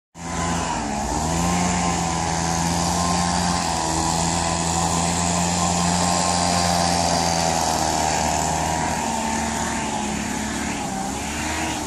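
Leaf blower running steadily, blowing air through a pile of dry leaves; its motor note wavers slightly in pitch over a constant rushing hiss of air.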